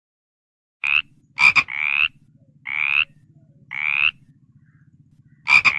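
A frog calling in a series of short, high croaks about a second apart, each rising a little in pitch, starting about a second in.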